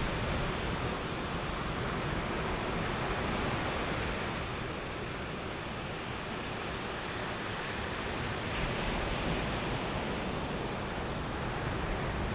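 Ocean surf washing onto a beach: a steady rushing wash that swells slightly now and then.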